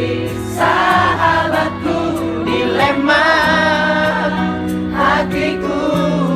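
Live pop song: a singer's voice over long, held low chords.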